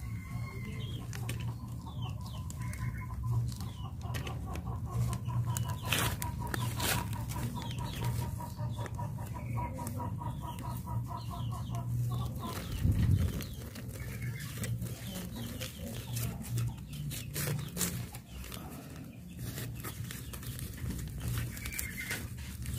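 Chickens clucking, with scattered sharp clicks and knocks and one loud dull thump about 13 seconds in.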